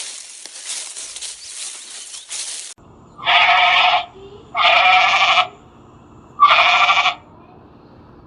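A hissing, crackling noise that cuts off after nearly three seconds, then three short animal calls, each under a second long and about a second and a half apart.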